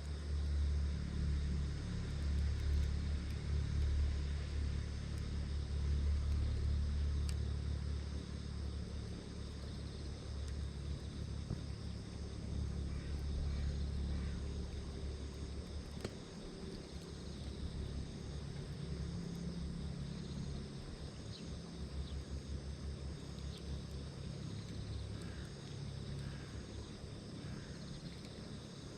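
A steady low rumble, strongest in the first half and easing later, with faint steady insect chirring above it and an occasional faint click.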